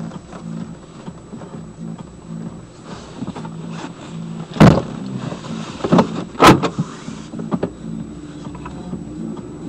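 Cab of a 2002 Chevrolet Silverado 2500HD driving slowly with a broken center driveshaft (carrier) support bearing: a low pulsing drone, with three loud clunks about halfway through and a few fainter ones just after.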